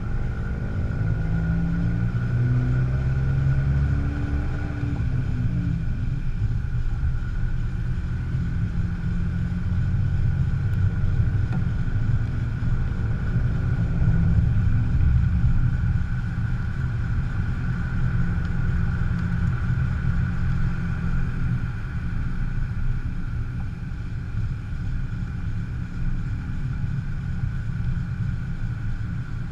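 Fiat 500 Abarth on the move: a steady low rumble of tyres and drivetrain, with a faint, steady high whine running through it. The owner suspects the wheel noise is a bad wheel bearing or brake pads dragging on the rotor.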